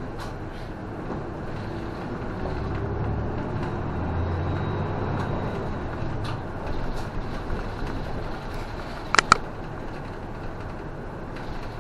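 Inside a Toei city bus under way: engine and road noise, the engine swelling and rising in pitch as the bus pulls away a couple of seconds in. Scattered clicks throughout, and two short sharp beeps in quick succession about nine seconds in.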